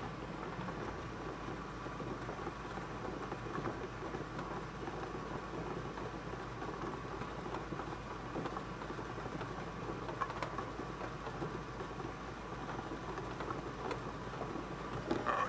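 Bingo ball blower machine running steadily, the balls tumbling and clicking in the air stream, with a low steady hum underneath.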